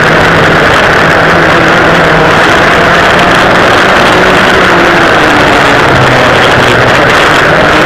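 Twin two-stroke engines of a vintage dual rear engine racing kart running hard at racing speed, loud and continuous. The engine note dips about five seconds in and climbs again near the end as the kart goes through a corner.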